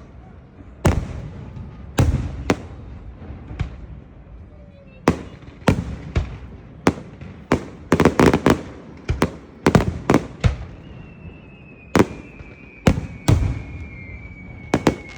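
Fireworks going off: a string of sharp bangs at irregular intervals, with a quick run of crackling reports about halfway through. A thin whistle slowly falls in pitch through the last few seconds.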